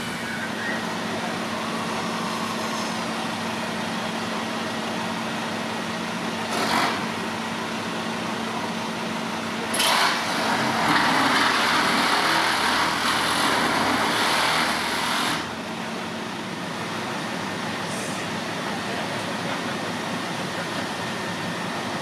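Fire engines running with a steady engine hum under the hiss of water jets. About ten seconds in, a louder rushing hiss starts abruptly, lasts about five seconds and cuts off suddenly, after a shorter burst a few seconds earlier.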